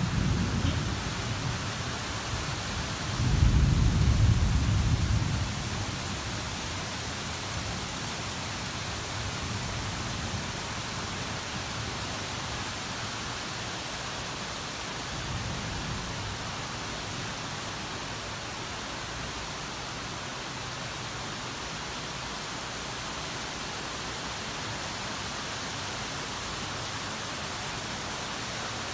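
Torrential rain falling in a steady hiss. A loud deep rumble comes about three seconds in and lasts a couple of seconds, with a fainter one about fifteen seconds in.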